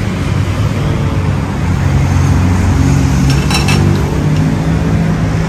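Steady low rumble of road traffic with a running vehicle engine. A few short clinks of utensils come about three and a half seconds in.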